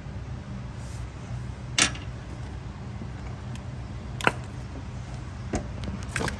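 A few short, sharp metallic clicks and clinks from small metal parts or tools being handled, about four in all, over a steady low hum.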